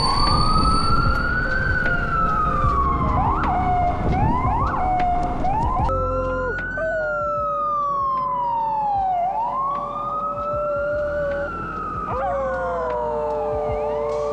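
Emergency vehicle siren wailing, slowly rising and falling in pitch, with an Australian Shepherd howling along in long, held notes that drop in pitch at the end.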